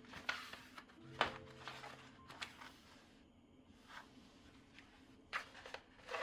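A few light clicks and knocks, spaced out every second or so, over faint background music.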